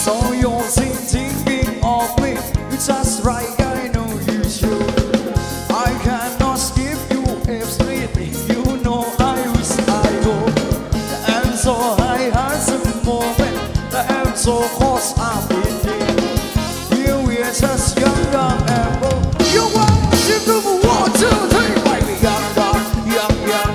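Upbeat Thai ramwong dance music: a drum kit keeps a steady, busy beat with snare rimshots and bass drum under a gliding melody line.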